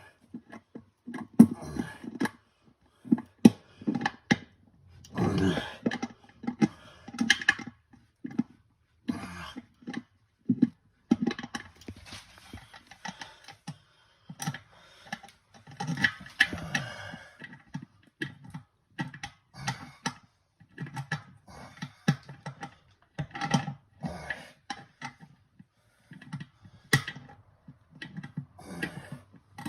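Irregular clicks, knocks and scrapes of pliers and hardware on the tank-to-bowl bolts as a toilet tank is tightened down onto the bowl, with a few sharp, loud knocks in the first few seconds.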